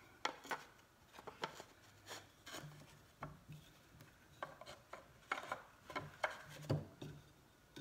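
Wooden frame pieces and a thin plywood backer being handled and slid together: scraping of wood against wood with scattered light knocks as the panel goes into the routed grooves.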